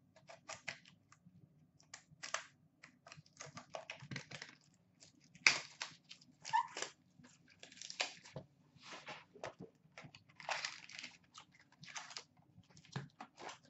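A 2013-14 Upper Deck Trilogy hockey card pack wrapper being torn open and crinkled by hand while the cards are slid out. It makes an irregular run of short crinkles and rips, the sharpest about five and a half seconds in.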